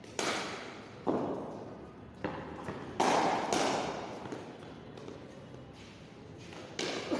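Cricket bat striking balls, with the balls knocking on the concrete floor and walls: about six sharp knocks, each echoing in the hall, the loudest about three seconds in.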